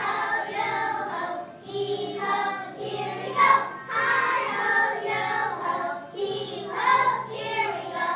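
Group of children singing a song together over a musical accompaniment, in sung phrases of a second or two with short breaks between them.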